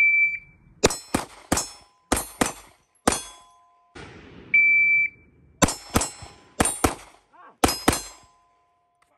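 An electronic shot timer beeps, then a Glock 19X 9mm pistol fires six shots in quick pairs, with the steel targets ringing after hits. The timer beeps again about halfway through, and another string of six shots follows.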